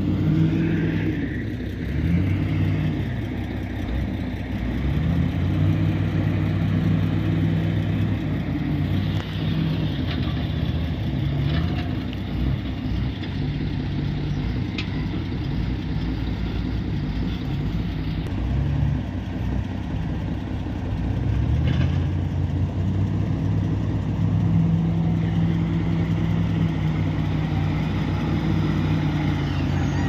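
Komatsu WA470 wheel loader's diesel engine working, its note rising and falling several times as it revs up and eases off, with a few faint knocks.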